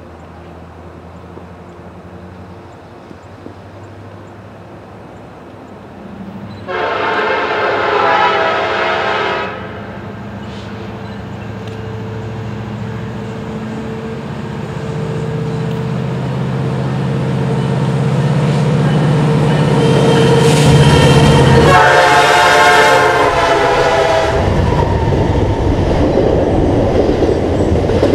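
Diesel freight locomotive approaching, its engine drone growing louder, and its horn sounding twice: a blast of about three seconds some seven seconds in, then a longer one around 20 to 24 seconds. Near the end the lead units pass, and the train's cars roll by close with clattering wheels.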